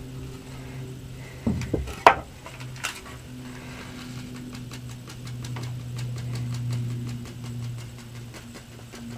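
A steady low mechanical hum, with a few sharp clicks about two seconds in. Over the second half comes rapid faint ticking as a seed packet is tapped to shake Swiss chard seeds into a furrow.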